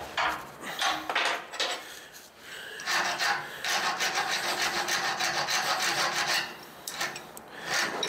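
Hand deburring tool scraping the cut end of a 3/16-inch brake line, reaming out the burr before flaring. A few short scrapes, then a steady scrape of about three seconds past the middle, then a few short strokes again.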